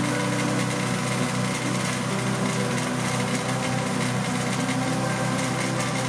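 Harbor Freight 6.5 HP (212cc) wood chipper's single-cylinder gas engine running steadily at an even speed, with no wood being fed: a break-in run.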